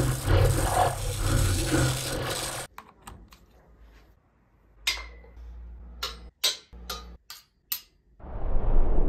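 A sci-fi electric energy-shield sound, a noisy roar over a low buzz, cuts off about two and a half seconds in. After a quiet stretch, a metal fork sounds in a series of about six sharp, short metallic ticks. Near the end a loud rushing noise swells in.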